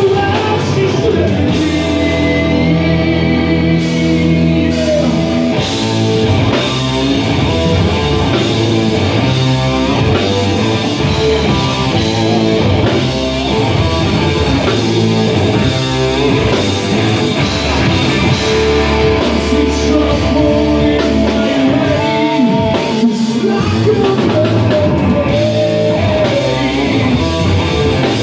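Live rock band playing loud: electric guitar, bass guitar and drum kit, with a male lead singer.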